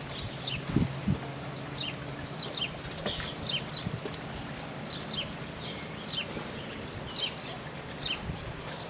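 Small birds chirping over and over, short high chirps that slide downward, often in pairs, over a faint low steady hum.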